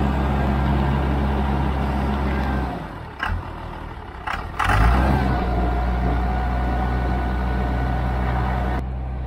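Ram 2500's 5.9 L 12-valve Cummins inline-six diesel, long parked and only just brought to life, running steadily, then cutting out about three seconds in. After a couple of clicks it catches again with a loud burst about five seconds in and settles back into a steady run.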